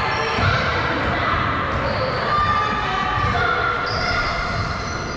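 Basketball game play in a gym: the ball bouncing on the court, repeated thuds, with several short high squeaks, such as sneakers make on the floor, and players' voices.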